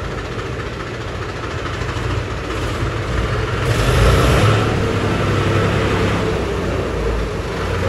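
Tractor diesel engine running, rising in level about four seconds in as it is revved, then settling back.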